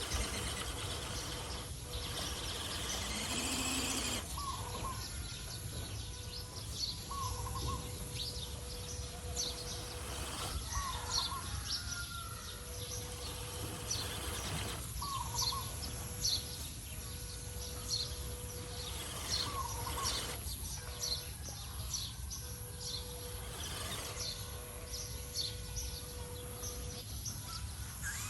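Outdoor ambience with birds chirping: many short high chirps and a short repeated call every three to four seconds, over a low steady background rumble and a faint hum.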